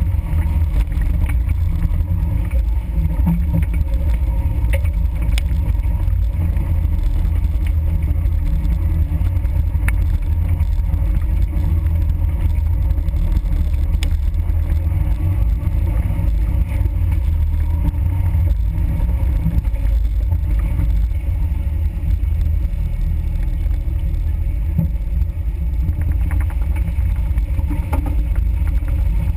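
Suzuki Samurai 4x4 driving slowly along a rough dirt trail: a low, steady engine rumble with jostling from the bumpy ground, picked up by a vehicle-mounted GoPro.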